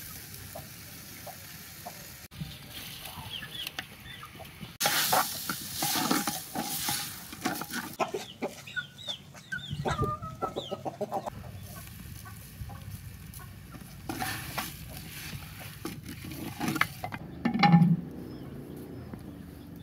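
Chickens clucking over onions and green chillies sizzling and being stirred in a clay cooking pot. Near the end comes a loud dull knock as the clay lid is set on the pot.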